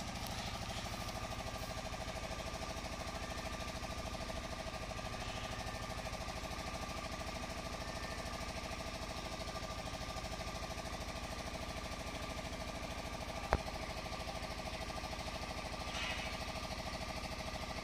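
An engine running steadily nearby, a fast even mechanical rattle that does not change. There is one sharp click about three-quarters of the way through.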